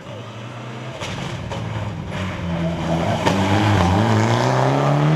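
A rally car's engine revving as the car approaches, growing steadily louder, its pitch rising through the gears then holding, with a few sharp cracks.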